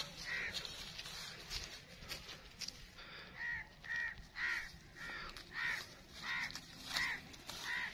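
A bird calling over and over, short calls coming about every half second, in a steady run from a little before halfway through.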